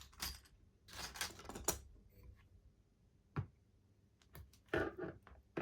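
Small parts and tools being handled and shifted about: scattered rustling and a few sharp clicks.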